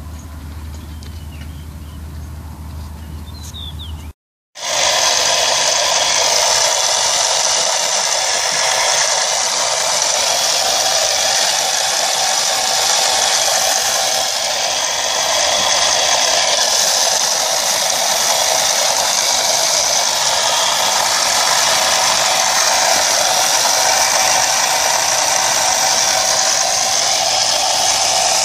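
Homemade RC excavator's hydraulic power unit running: a loud, steady mechanical whir and rattle of the pump, starting after a cut about four seconds in. Before the cut, a quieter low hum of the machine.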